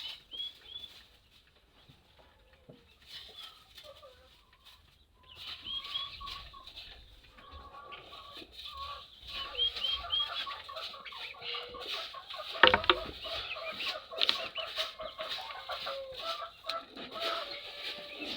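Chickens clucking with many high chick peeps, sparse at first and much busier from about five seconds in. A single sharp knock a little past the middle is the loudest sound.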